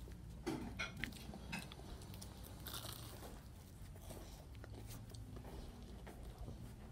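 Biting into and chewing a McDonald's baked apple pie, its crust crunching faintly with a few sharp crackles early on.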